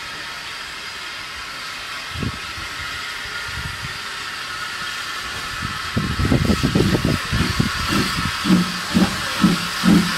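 Tank steam locomotive No. 3135 hissing steam, then chuffing as it moves forward. From about six seconds in the exhaust beats start, settling into an even rhythm of about two a second.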